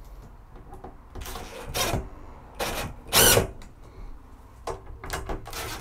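Cordless driver spinning bolts tight into the rooftop air conditioner's mounting channels, in several short bursts with pauses between them.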